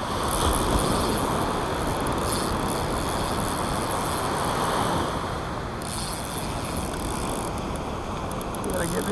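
Steady rushing noise of surf on the beach, with wind on the microphone.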